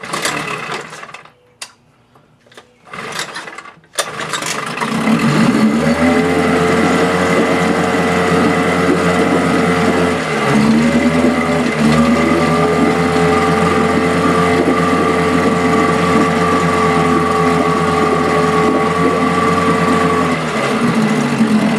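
Mercury 9.8 hp (Merc 110) two-stroke outboard cranked in a few short bursts, catching about four seconds in and then running steadily, with a brief dip in speed about ten seconds in. Starting and running on its own is the sign that the cleaned carburetor is now feeding fuel.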